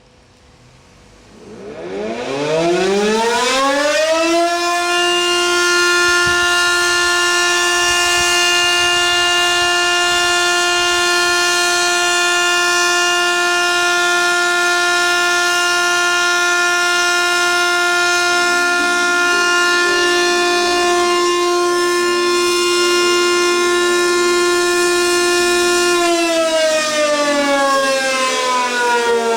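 Electric motor siren winding up about a second and a half in, its pitch rising for a few seconds. It then holds one steady wail rich in overtones for about twenty seconds and begins to wind down, pitch falling, near the end. It is the siren's daily evening signal.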